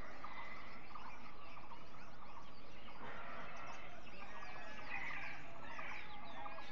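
Many small birds chirping and singing at once in a dense, steady dawn chorus.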